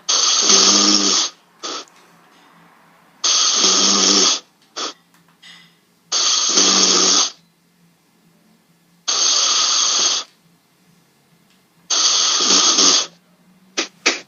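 A person snoring loudly and rhythmically: five long snores about every three seconds, each followed by a brief shorter sound.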